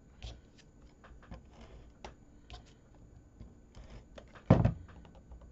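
Cardstock and paper pieces being handled on a craft desk: light rustling and small clicks, with one louder thump about four and a half seconds in.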